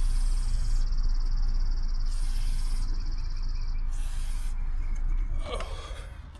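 Aerosol chain lube sprayed onto a motorcycle chain in three short hisses about two seconds apart, over a steady low rumble.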